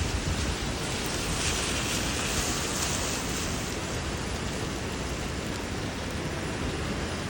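Steady rain falling, an even hiss that grows a little brighter between about one and three and a half seconds in.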